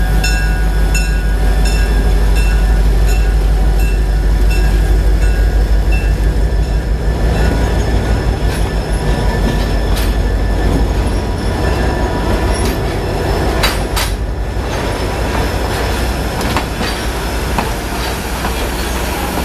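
A train passing close by with a heavy low rumble. A bell rings about twice a second for the first six seconds. Wheels then clatter and click over the rails.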